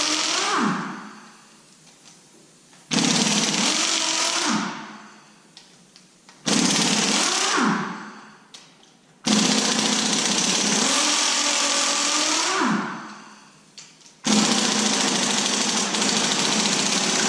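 Pneumatic impact wrench running on compressed air in repeated bursts, removing cylinder head bolts. There are five bursts of about one and a half to three and a half seconds each, the first ending under a second in and the last still running at the end, and each one winds down with a falling pitch.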